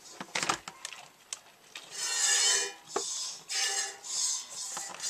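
Streams of goat's milk squirting into a pail during hand milking. After a few light knocks, the squirts start about two seconds in as short hissing spurts, about one every 0.7 s, as the milk starts to flow.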